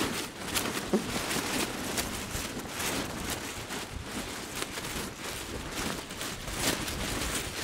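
Strong gusting wind buffeting a tarp and tent, with the fabric flapping and snapping irregularly over a steady rush of wind. The tarp is straining against its pitch in the gale.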